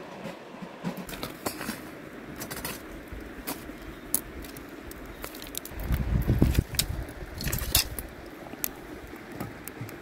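Clinks and knocks of a black metal cooking pot and its lid being picked up, carried and set on a metal grill over a wood fire. A louder low rumble comes about six seconds in.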